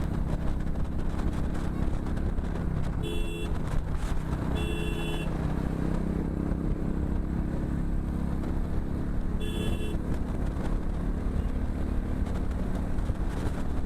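Motorcycle engine and road noise at steady highway speed, with three short horn honks: about three seconds in, a slightly longer one near five seconds, and another about nine and a half seconds in.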